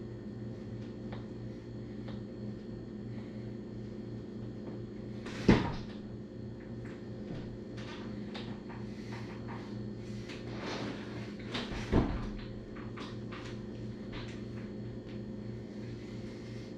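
Steady low hum of a turning ceiling fan. Over it come two sharp knocks, one about five seconds in and one about twelve seconds in, with scattered light clicks and taps between them.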